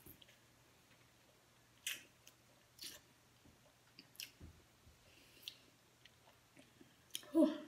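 A person biting and chewing a raw lemon wedge, with scattered short wet smacks and sucking sounds from the mouth. A louder, fuller mouth sound comes near the end.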